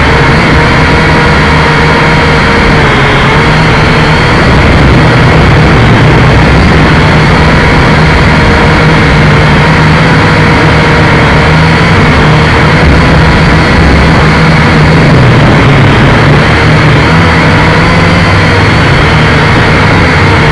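Quadcopter drone's electric motors and propellers running, heard close up through its onboard camera: a loud, steady buzzing whine that wavers slightly in pitch, over a low rumble.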